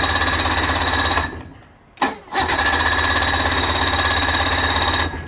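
Electric starter cranking a 60 horsepower Evinrude two-stroke outboard that has sat unused for seven or eight years: two steady stretches of a whining, fast rhythmic churn, the first ending about a second in and the second starting about two and a half seconds in, after a short pause.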